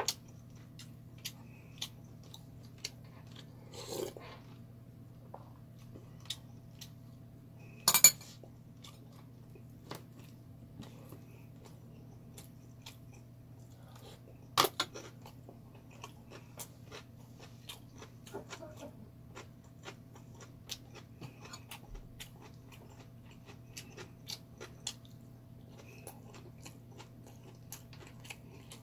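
A person eating and chewing, with scattered small clicks of a metal spoon and chopsticks against the dishes. Two sharp knocks stand out, about eight seconds in and about fifteen seconds in. A steady low hum runs underneath.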